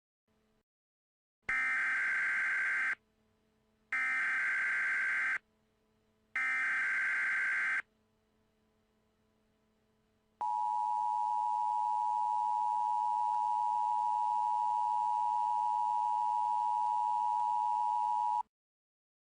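Emergency Alert System header: three short bursts of SAME digital data tones, each about a second and a half long. After a pause comes the steady two-tone EAS attention signal, held for about eight seconds. Together they mark the start of a new emergency alert.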